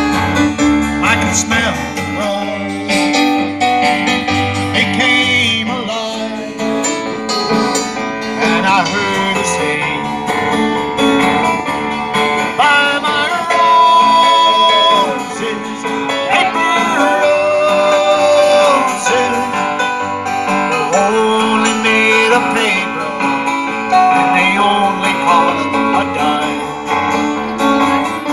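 Acoustic guitar and electronic keyboard playing an instrumental passage of a slow ballad live, amplified through a PA, with held keyboard melody notes over the strummed guitar.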